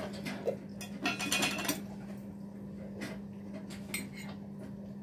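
Fork clinking and scraping against a plate while eating: a few light knocks and a longer rattling scrape about a second in, over a steady low hum.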